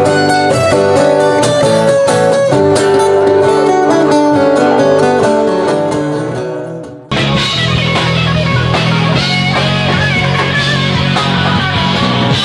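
Acoustic guitars strumming and picking, fading out about seven seconds in; then an abrupt cut to a loud rock band with electric guitar and drums.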